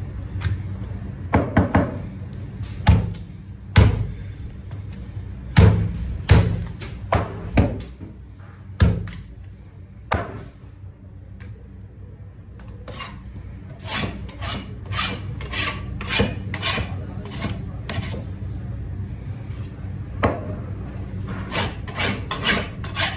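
Butcher's knife working on a cutting board while a large narrow-barred mackerel is cut up: irregular sharp knocks and cuts through the first half. In the second half comes a quick run of scraping strokes, about two a second, as the blade scrapes across the board. A low steady hum runs underneath.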